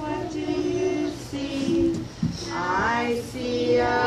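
A woman and young children singing a song together in held, steady notes.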